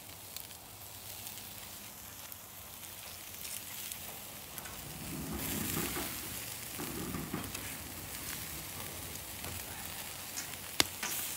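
Pork sizzling and faintly crackling on the grate of a charcoal kettle grill, with one sharp click near the end.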